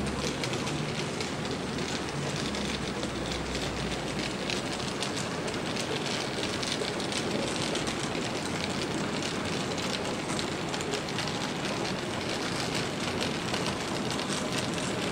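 A long consist of model diesel locomotives rolling along the layout's track: a steady rumble of wheels and motors, with a dense patter of small clicks from the wheels over the rail. A low hum sits under it for the first few seconds.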